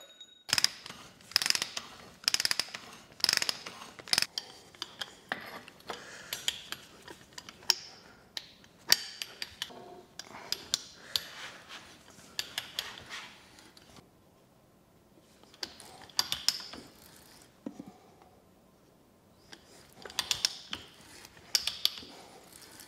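3/4-inch conduit pieces and fittings being threaded together by hand: irregular clusters of sharp mechanical clicks and clinks, with a couple of short pauses.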